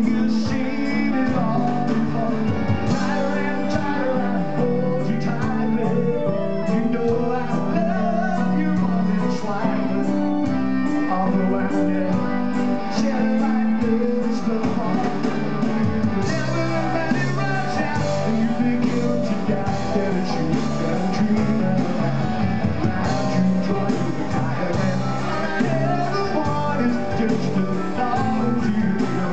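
Live rock band playing a song, led by electric guitar, with a man singing into the microphone.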